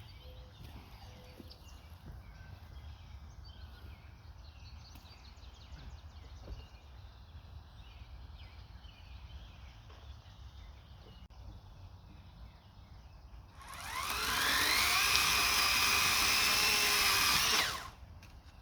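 Electric chainsaw motor spinning up with a quick rising whine late on, running at a steady high pitch for about four seconds, then cutting off suddenly. Before it there is only a low background rumble.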